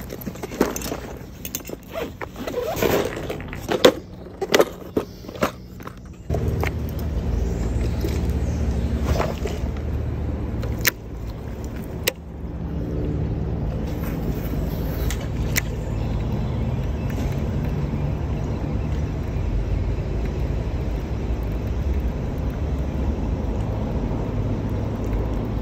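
Sharp clicks and knocks of handling for about the first six seconds, then a steady low engine drone with an even hum sets in.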